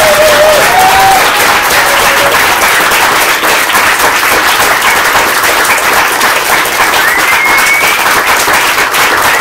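Audience applauding loudly and steadily, a dense patter of many hands clapping. A few voices cheer near the start, and a high held call rings out about seven seconds in.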